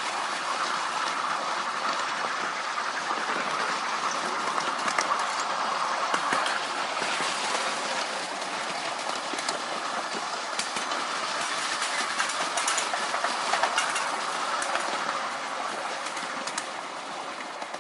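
Miniature railway train running along the track: the steady rumble of small wheels on the rails, with sharp clicks as the wheels pass over rail joints, more of them in the second half.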